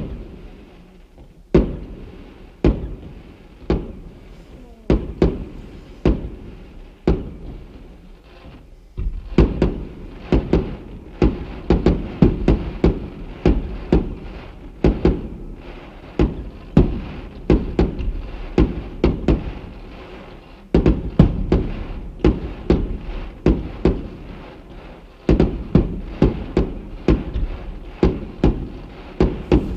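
Aerial fireworks shells bursting with sharp bangs, at first about one a second, then in rapid volleys from about nine seconds in, with brief lulls between them.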